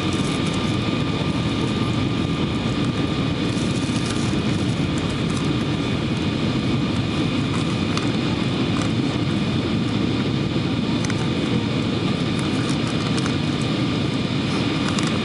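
Boeing 777-200 cabin noise during the descent to land, heard at a window seat: a steady rush of airflow and engine noise, deepest at the bottom, with a few faint steady whining tones above it.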